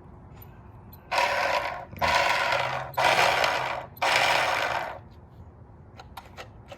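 The small battery-powered electric motor and propeller of a toy RC fishing boat running out of the water in four short bursts of about a second each, a whirring mechanical buzz.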